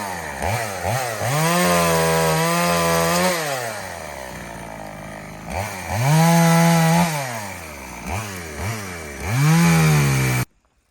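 EFCO chainsaw engine running and revving in repeated bursts: a few quick throttle blips, then three long runs at high revs, dropping back to a lower idle in between. It cuts off abruptly near the end.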